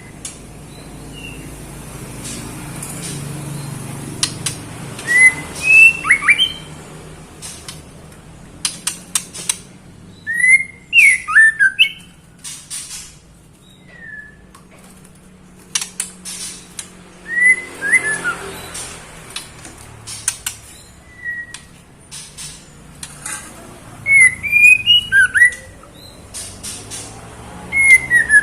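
Female white-rumped shama calling for a male, as a female in breeding condition does: short clusters of rising whistled notes mixed with sharp ticks and squawky calls, coming every five or six seconds. A faint low hum runs underneath.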